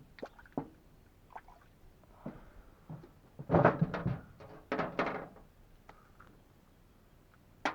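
Knocks and thuds of a freshly caught fish being handled in a kayak, its flapping against the hull and tackle coming in two louder rough clusters about three and a half and five seconds in, with scattered small clicks around them.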